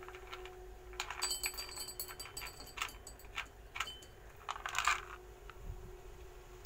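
Dry dog kibble poured from a small plastic tub into a ceramic bowl: the pieces clatter and rattle in several bursts over a few seconds, the busiest near the end.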